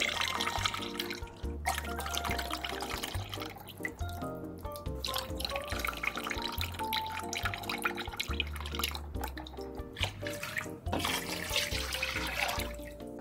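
Background music with a steady beat over liquid pouring and splashing: cultured yogurt drink streaming from a row of small bottles into a stainless steel pot of pork, then water poured in near the end.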